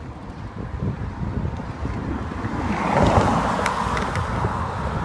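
Wind buffeting the microphone of a bicycle-mounted camera while riding, with a low rumble. About three seconds in, a car overtakes with a swell of tyre and road noise, the loudest moment.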